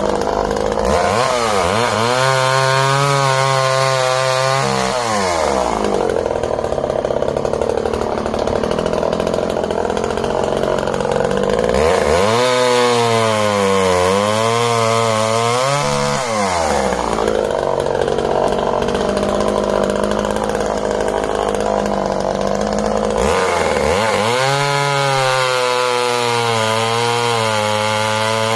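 Dolmar 101 Hobby top-handle two-stroke chainsaw (the Poulan Micro XXV engine) revving up to full throttle and cutting into a log three times, dropping back to idle between cuts. Its pitch sags under load in the middle cut.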